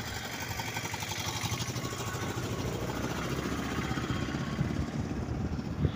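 Two-wheeler's engine running steadily under road noise, heard from the rider's seat while moving along the road.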